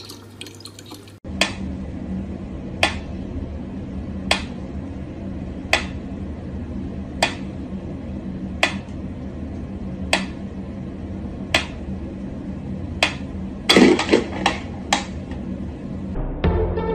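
Mechanical pyramid metronome ticking at a slow, steady beat, one sharp tick about every one and a half seconds. Near the end comes a quick cluster of louder clicks and knocks.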